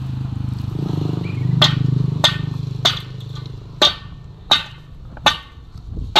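Sharp, ringing metallic knocks, evenly spaced about one every 0.7 s, starting about a second and a half in. Under them a steady engine hum fades out after about three and a half seconds.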